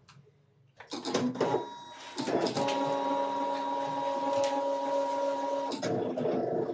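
Brother ScanNCut cutting plotter starting its test cut: about a second in come a few clicks and whirs as the carriage moves, then the motors whine steadily while the blade cuts a small test circle, the pitch shifting near the end. The test cut checks whether the blade depth setting suits a worn blade.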